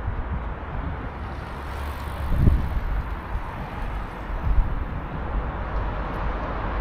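Steady outdoor city background noise: a continuous rush with a few brief low rumbles.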